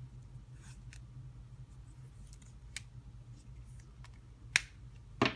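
Small objects being handled and picked up: scattered light clicks and ticks, with two sharper clicks near the end, over a low steady hum.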